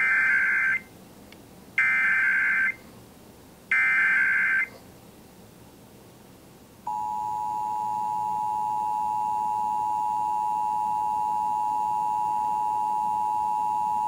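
Emergency Alert System Required Monthly Test on FM radio: three short bursts of the digital SAME header data tones, each just under a second and evenly spaced. About two seconds after the last burst, the steady two-tone EAS attention signal (853 and 960 Hz together) starts and holds unbroken.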